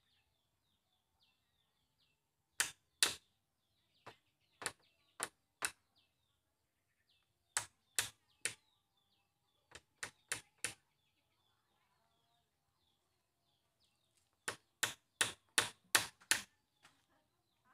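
Hammer blows on a bamboo pole frame as a crossbar joint is fixed to an upright, sharp strikes in irregular bursts of two to four, ending in a quick run of about six blows near the end.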